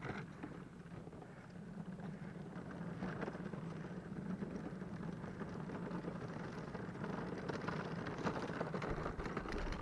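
Wheels of a dog-drawn cart rolling on a paved road: a steady low rumble with light rattling, building up over the first few seconds as the cart gets going.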